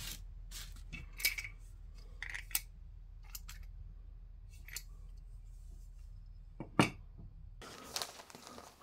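Unboxing handling noise: paper rustling and small plastic parts clicking and being set down on a wooden workbench, a scatter of short clicks with the loudest knock about seven seconds in.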